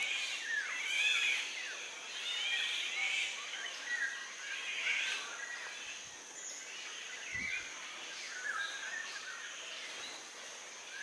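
Black-naped oriole calling in short curving notes, again and again, over a steady high insect drone.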